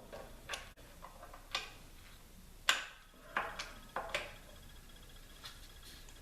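Irregular sharp metallic clicks and taps from hand tools being worked on the motorcycle's front axle hardware, about a dozen in all, the loudest a little under three seconds in.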